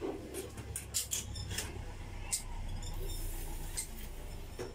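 Irregular short, high-pitched squeaks and clicks from hands-on work on an aluminum sliding window, over a steady low hum.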